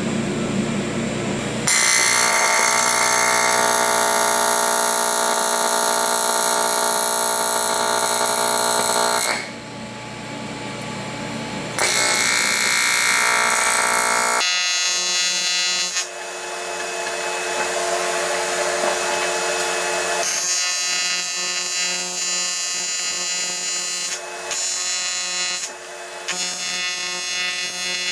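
AC TIG welding arc buzzing on aluminum, starting about two seconds in. It eases off around the middle, changes tone partway through, and stops briefly a few times near the end.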